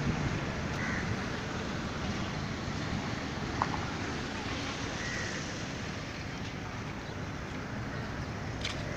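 Outdoor ambience: steady rumbling hiss of wind on a handheld phone's microphone, with a couple of faint high chirps.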